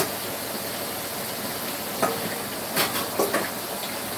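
A steady, even hiss, with a few short knocks and clicks about two, three and three and a half seconds in.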